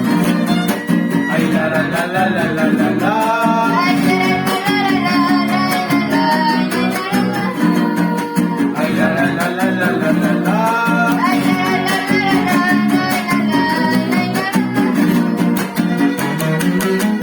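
A trío huasteco playing a huapango: violin with jarana huasteca and huapanguera strumming steadily underneath. Two sung phrases come in, about three seconds in and again about ten seconds in.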